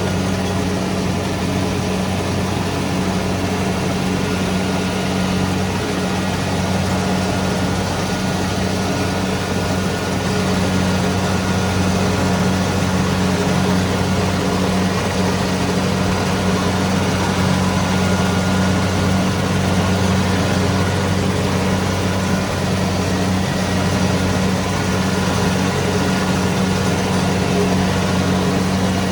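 Kubota DC-70 Pro combine harvester's diesel engine running steadily with a deep, even hum.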